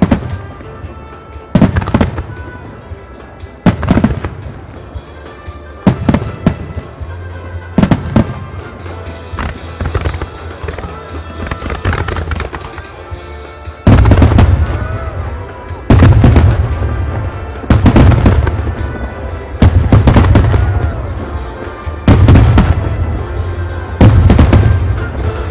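Aerial firework shells bursting in a music starmine barrage, a sharp report about every two seconds, becoming heavier booms with crackling tails about halfway through. Music plays underneath.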